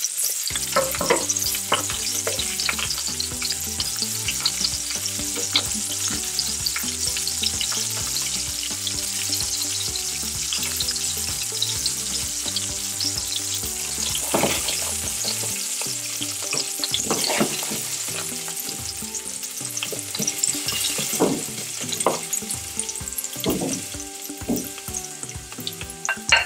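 Sliced onions sizzling in hot oil in a nonstick pan, stirred now and then with a wooden spoon.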